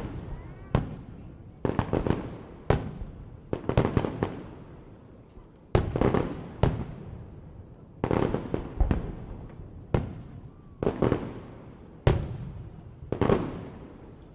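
Aerial fireworks bursting overhead, a string of sharp bangs coming every second or two, some in quick pairs, each followed by a rumbling echo that fades.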